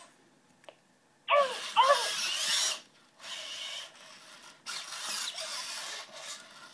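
Genibo QD robot dog playing its built-in dog-bark sound effects through its small speaker: two quick barks about a second and a half in, then several stretches of harsh, rasping noise.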